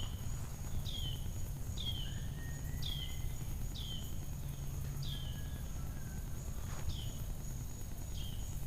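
A bird repeating a short, falling chirp about once a second, over a steady high-pitched insect drone and a low outdoor rumble.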